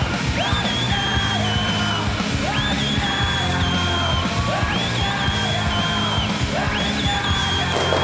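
A woman's loud, shrill whistling over a rock backing track: four long notes, each swooping up and then held for about a second and a half, one about every two seconds.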